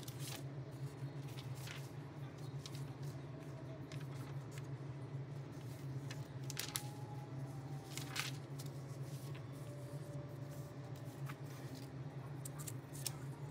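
Steady low room hum with a few scattered light rustles and taps of paper being handled, the last of them as sheets of drawing paper are laid down on the table near the end.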